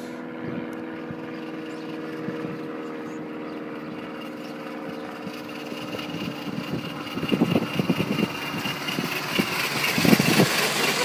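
Miniature live-steam locomotive, a model of LMS Royal Scot, approaching and passing with its exhaust beats growing louder from about seven seconds in, and steam hissing near the end. Before that there is a steady low hum.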